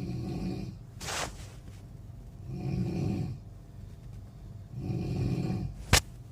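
Snoring: three rough snores about two and a half seconds apart, with a short hiss after the first. A single sharp click comes near the end.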